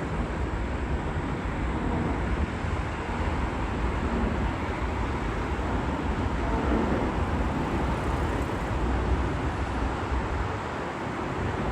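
Jet aircraft engine noise: a steady broad rumble with a strong low end, swelling slightly around the middle.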